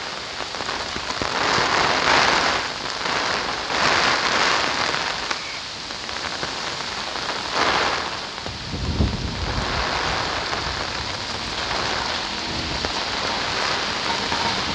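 Heavy rain pouring down on the road and its surroundings: a dense steady hiss that swells and eases every couple of seconds, with a low rumble about nine seconds in.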